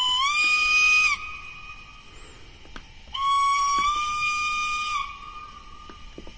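The Rapido 'Lion' model locomotive's DCC sound decoder playing its steam whistle (function F2) through the model's small speaker. A whistle blast rises slightly in pitch and stops about a second in. A second blast comes about three seconds in and lasts about two seconds, also rising a little in pitch before it fades.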